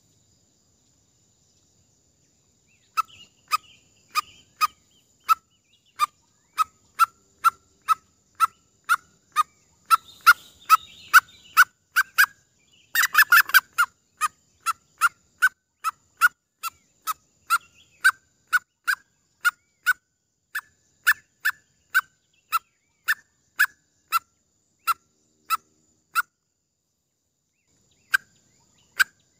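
Junglefowl lure call: a long run of short, clucking calls at about two a second, each rising slightly in pitch. It starts about three seconds in, with a short dense flurry midway, and stops near the end.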